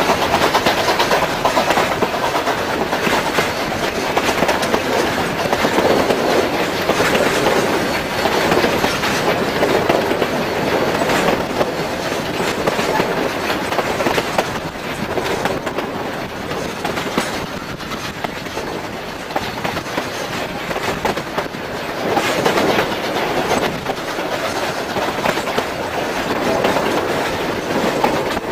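Narrow-gauge steam train running, heard from its passenger coaches: a steady rumble of the cars, with the wheels clacking over the rail joints.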